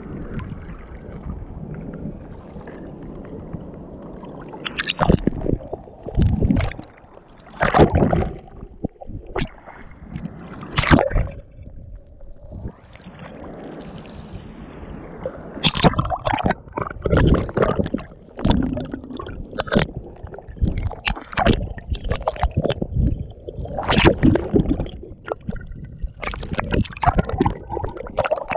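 Sea water sloshing and splashing around a camera held at the water surface in the surf, with irregular slaps of small waves and gurgling as the lens dips in and out. The splashes come thicker in the second half.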